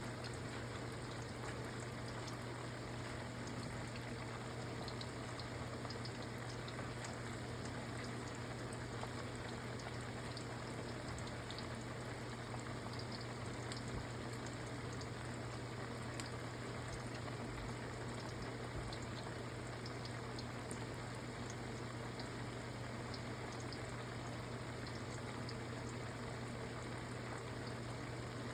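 Food frying in hot grease: a steady sizzle with many small scattered pops, over a steady low hum.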